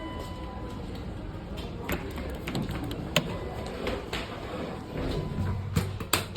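Thyssenkrupp hydraulic elevator in operation: a short electronic beep at the start, then a low rumble with scattered clicks and knocks, several in quick succession near the end.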